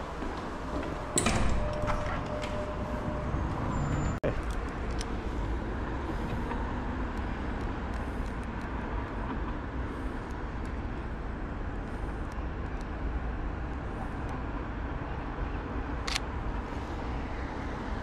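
City street ambience: a steady rumble of passing traffic, with a loud, sharp clatter about a second in and another brief knock near the end.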